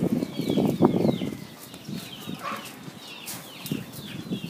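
High, short descending peeps of chicks, repeated throughout, with rustling in the undergrowth for about the first second and a half as dogs root through the weeds.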